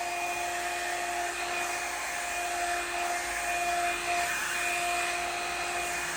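Revlon One-Step Volumiser hot-air brush running as it is combed through hair: a steady high motor whine over the rush of blown air.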